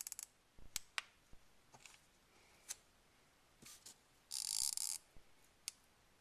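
Hot glue gun being worked: scattered sharp clicks of its trigger and feed mechanism, with a short rasping burst of about half a second a little after the middle.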